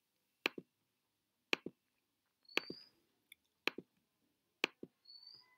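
Computer mouse-button clicks, about one a second, each a quick press-and-release pair, made while selecting devices to connect with cables.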